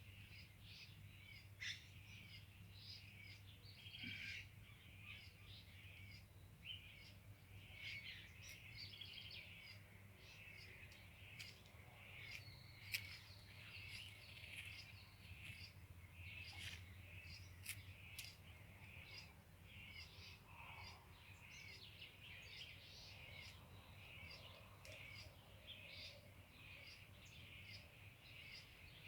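Many small birds chirping and calling continuously, a dense chorus of short, high, faint notes. A steady low hum lies underneath.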